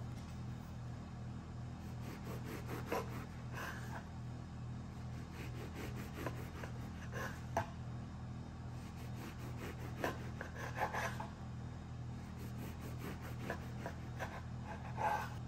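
Bread knife sawing through a braided challah loaf, crust and crumb rasping in short groups of back-and-forth strokes, one group for each slice. A steady low hum runs underneath.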